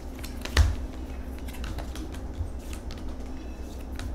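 Cigano fortune-telling cards being handled over a tabletop: a run of light clicks and flicks, with a firmer knock about half a second in.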